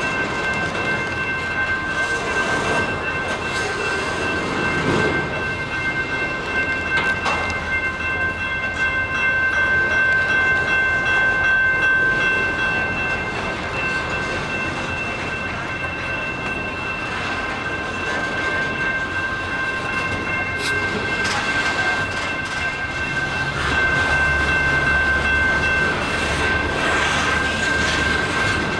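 Canadian Pacific freight train moving slowly, a continuous rumble with several steady high-pitched tones held over it; the rumble grows louder twice, about a third of the way in and again near the end.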